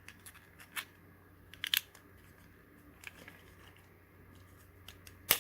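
Small plastic parts being handled and pressed together: a few light clicks and scrapes, then one sharp, loud click near the end as the part snaps into place.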